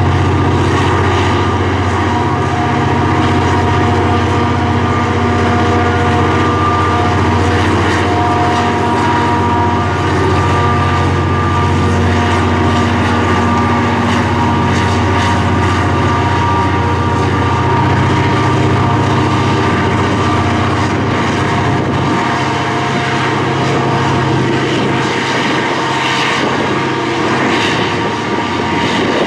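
FEPASA diesel-electric freight locomotive running as it passes, a steady low engine drone with a steady whine above it.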